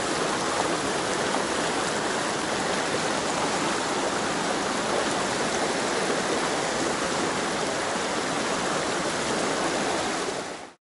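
Fast mountain stream running over rocks and riffles: a steady rush of water that fades out quickly near the end.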